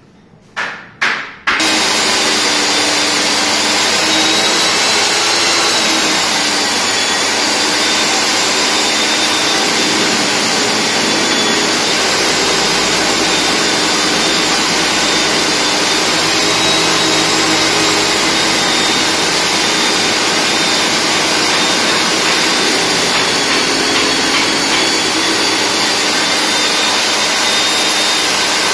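Rig-mounted, water-fed diamond core drill cutting through reinforced concrete. After a few short bursts, the motor starts about a second and a half in and runs steadily under load, with a high whine over the noise of the bit grinding.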